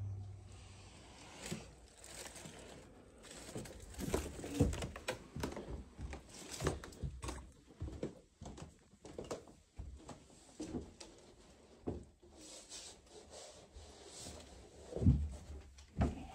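Footsteps with scattered knocks and rustles of people moving about a cluttered room, irregular and uneven, with a couple of heavier thuds near the end.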